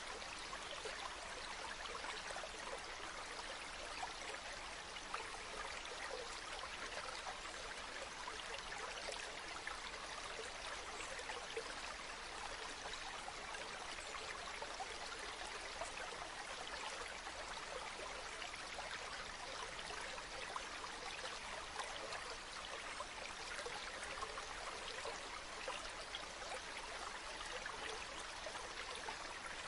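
Stream water running, a steady, even rush with fine trickling and splashing detail.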